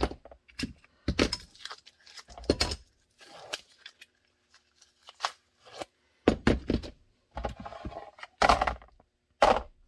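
Handling noise from holster forming: blue tape being ripped off the taped gun mold, the mold pulled out, and the stiff formed thermoplastic holster sheet flexed and set down. It comes as an uneven series of crackles, snaps and knocks, the loudest two near the end.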